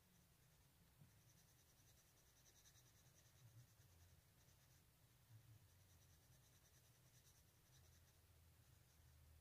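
Faint scratching of a coloured pencil shading on paper.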